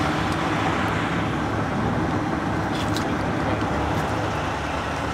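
Steady road-traffic noise from vehicles running on a wet highway, with a low engine hum underneath.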